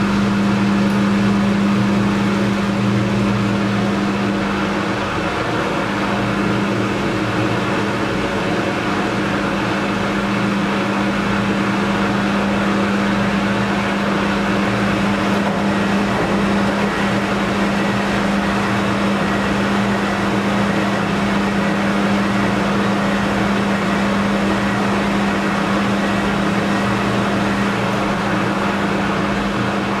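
Beko WKB 61022 front-loading washing machine early in its spin stage, the drum turning wet, foamy laundry with a steady mechanical hum.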